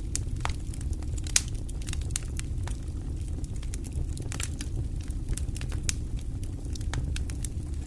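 Wood fire crackling, with frequent irregular sharp pops over a steady low rumble. One pop about a second and a half in is louder than the rest.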